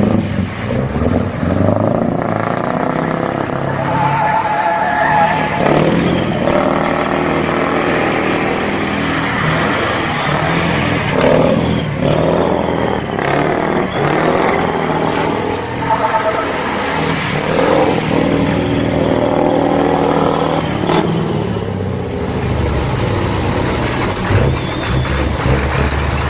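Diesel semi-truck tractor unit revving hard again and again as it spins doughnuts on pavement, the engine pitch rising and falling every couple of seconds.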